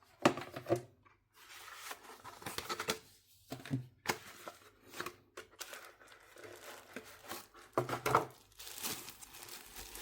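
A product box being opened by hand: irregular tearing and crinkling of packaging, with a few sharp knocks as the box is handled.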